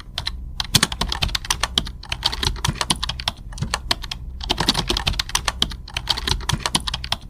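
Rapid, irregular clicking and tapping, many sharp clicks a second with a few brief pauses, then cut off abruptly.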